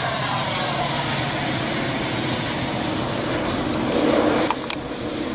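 Freewing Avanti 80 mm electric ducted-fan RC jet in flight: a steady rushing whine with a high tone that slowly falls in pitch, easing slightly near the end, with a couple of sharp clicks late on.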